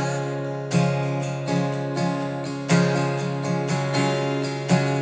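Acoustic guitar strummed in an instrumental pause between sung lines, the chords ringing on between strokes, with a strong strum about every two seconds and lighter strums in between.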